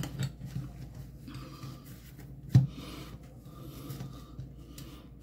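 Cloth napkin rustling and rubbing against a glass tabletop as it is rolled around a spoon and fork, with one sharp knock about two and a half seconds in.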